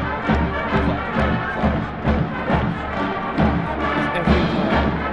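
Marching band playing: held brass chords over a steady low drum beat, about two to three beats a second.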